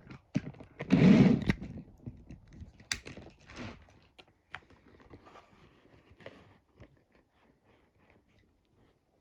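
Scattered clicks and knocks, with a louder clattering rustle about a second in, thinning out to faint ticks near the end.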